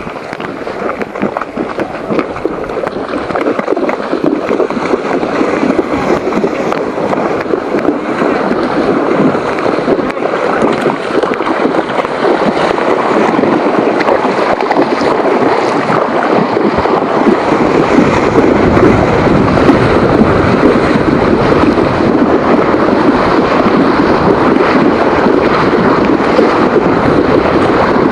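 Loud rushing wind noise buffeting the microphone while riding in rough weather, building over the first half, with a deeper rumble joining about two-thirds of the way through.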